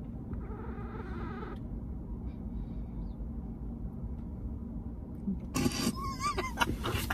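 Steady low hum of a car interior with the engine or fan running, at an even level. About five and a half seconds in, two women start laughing.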